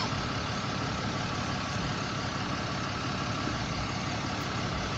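Steady hum of a vehicle engine idling, with even street noise and no distinct events.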